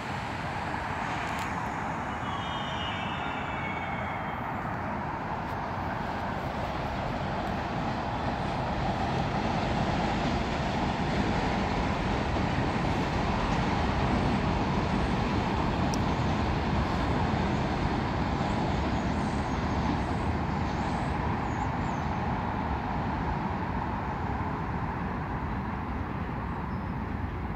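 A subway train, an R62A set on the elevated IRT Pelham line, running past: a steady rumble of wheels on rail that swells to its loudest about halfway through and then slowly eases off.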